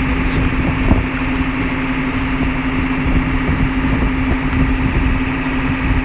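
Steady drone of running machinery with a constant low hum, unbroken throughout.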